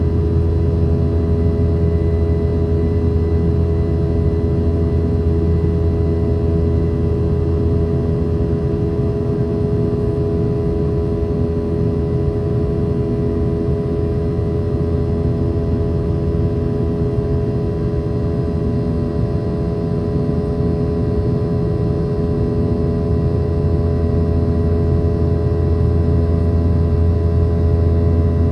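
Boeing 717-200 cabin noise heard from a rear seat: the tail-mounted Rolls-Royce BR715 turbofans give a steady, loud drone with a deep rumble and several steady whining tones, dipping slightly in level midway.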